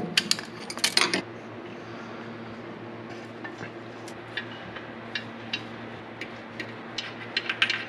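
Light clicks and clinks as spark plug wires and small parts are moved around the engine, a quick run of them in the first second, then scattered single clicks, over a steady low hum.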